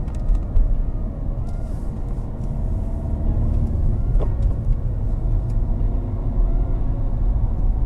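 Steady low road and engine rumble inside the cabin of a VW Golf VII driving along a city street, with a single faint click about four seconds in.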